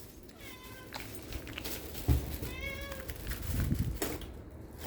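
Domestic cat meowing twice, short high calls about half a second in and again around two and a half seconds in, begging for food as it is being fed. A soft thump just after two seconds.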